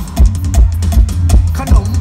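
Live Isan mor lam band music over a large stage sound system, driven by a steady heavy kick-drum beat with drum kit.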